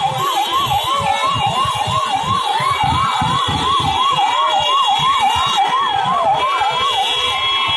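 Electronic siren on a fast yelp, sweeping up and down about three times a second, from the convoy's escort vehicle, until near the end.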